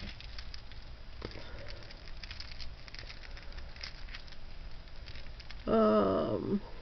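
Faux pearl beads and metal chain jewelry clicking and rattling lightly in the hands as a bracelet is lifted from the pile and handled. A brief voice sound near the end.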